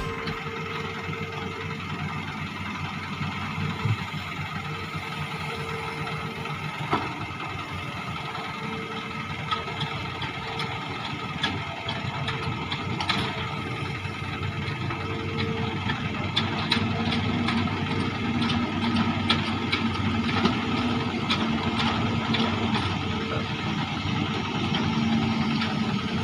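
Hitachi amphibious excavator's diesel engine running steadily as the machine works at the water's edge, with scattered knocks and clanks.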